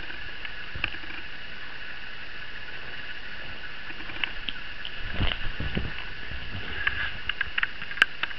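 A kitten tussling with a hand on a knitted blanket: soft rustling and scattered light clicks, with a few dull thumps about five seconds in, over a steady high hum.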